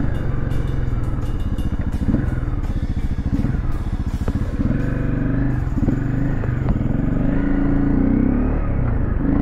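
Dirt bike engine running as it is ridden, its pitch rising and falling with the throttle. Light clatter and ticking in the first half.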